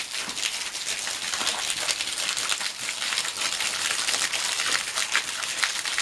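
Thin waterfall dropping from a sandstone overhang and spattering onto the rock floor below: a steady, dense crackling patter of drops.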